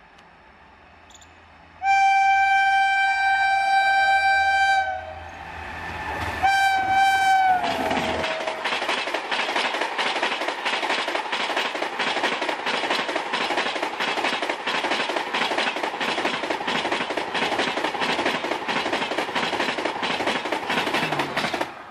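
Electric locomotive's horn sounding one long blast, then a short second blast whose pitch falls as the locomotive passes. The Humsafar Express coaches follow, rushing by at high speed with a steady, rapid clatter of wheels on the rails, which cuts off suddenly near the end.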